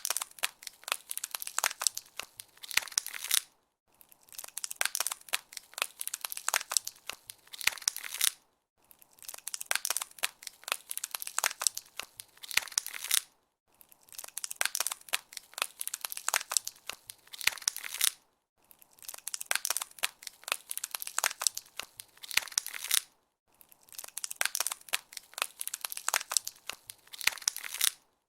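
Ice crackling as a freezing sound effect: dense, fast crackles and small snaps. They come in bursts of about four and a half seconds with short silent gaps between them, repeating evenly.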